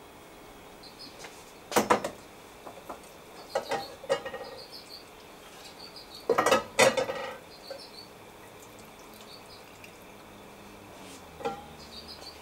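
Cookware clattering at a gas stove: an enamelled pot and metal kitchenware are knocked and handled in four short bursts, the loudest with a brief ring a little past the middle. Faint chirps repeat quietly in the background.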